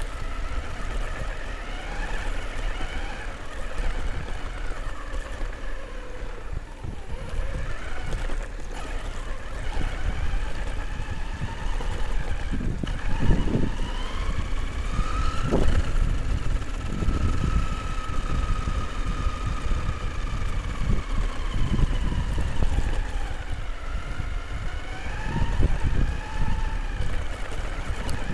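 Electric motor of an RC truck, upgraded with a new motor and ESC, driving over rough dirt. Its whine glides up and down in pitch with the throttle, over a steady rumble and rattle from the chassis, with a few short thumps from bumps partway through.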